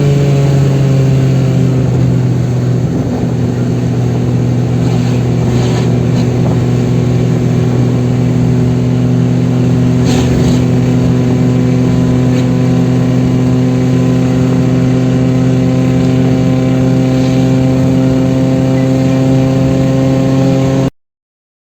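Chevrolet Kadett 1.8 four-cylinder engine running hard at high road speed, its note dipping slightly at first and then holding steady. It cuts off abruptly near the end.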